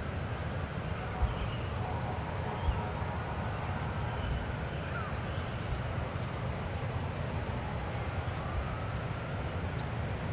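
Steady low outdoor rumble, with two soft thumps about one and three seconds in and faint, slowly wavering pitched sounds above it.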